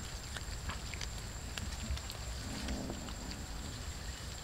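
Cats chewing and crunching raw fish off a metal tray: scattered small clicks and crunches, with a faint low cat growl about two and a half seconds in.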